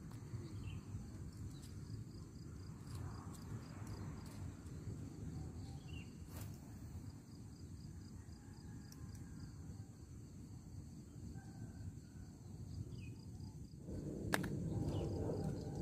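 Outdoor ambience: a steady low rumble of wind on the microphone under a faint, evenly pulsing chirr of insects, with a few faint chirps and a couple of sharp clicks. The low rumble grows louder near the end.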